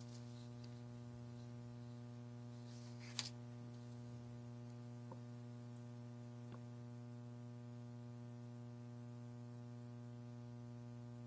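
Steady electrical mains hum on the countdown audio feed, with a short click-like burst about three seconds in and a couple of faint ticks after it.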